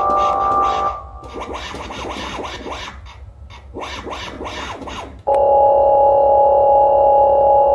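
Electronic synthesizer music: a held chord, then a gritty, noisy textured passage, then a loud steady chord that comes in sharply about five seconds in.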